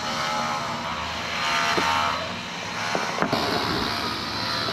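Steady engine-like background noise that swells and fades about two seconds in, with a few light clicks.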